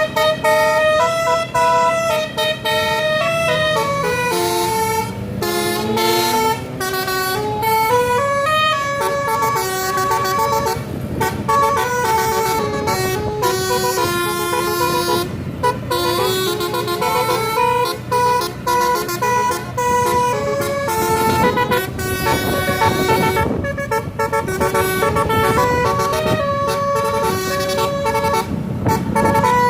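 Tour bus's basuri (telolet) musical air horn playing a tune, one held note after another, over the bus's engine. The engine revs up about four seconds in.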